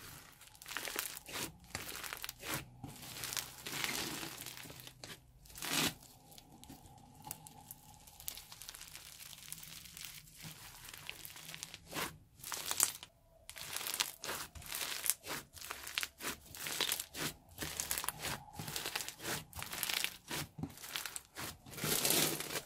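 Floam, clear slime packed with tiny polystyrene foam beads, crackling and crunching as hands squeeze, knead and pull it apart, in a run of irregular bursts.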